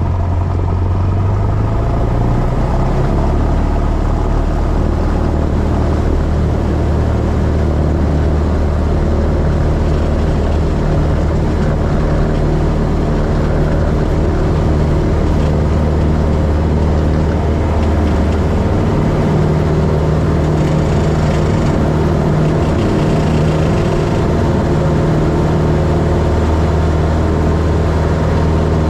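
Cessna's single-engine piston engine and propeller at full takeoff power during a soft-field takeoff roll on a grass strip, heard from inside the cockpit. The engine note rises over the first couple of seconds, then holds steady.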